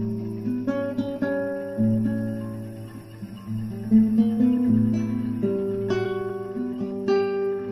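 Instrumental music on acoustic guitar: plucked notes and chords that ring on and change every second or so over a low sustained note.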